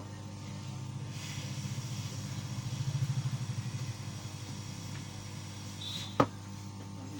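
Hot air rework station blowing onto the board to desolder a shorted SMD capacitor: a steady hum and hiss that swells and pulses for a few seconds, then dies back. Near the end there is a short high beep and one sharp click.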